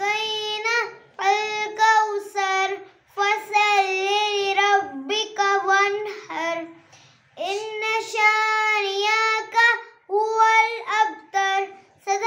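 A young girl singing solo and unaccompanied, in short phrases of held notes with brief pauses between them.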